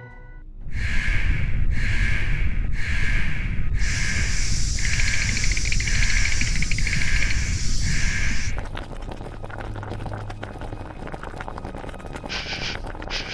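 Steam sound effect: hissing puffs about once a second over a low rumble, with a continuous high hiss joining about four seconds in. After about eight and a half seconds it drops to a softer hiss with a low hum.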